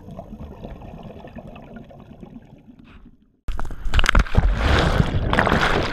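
Muffled underwater rumble that fades out, then, after a short gap about three and a half seconds in, loud splashing and sloshing of water right at the camera at the surface.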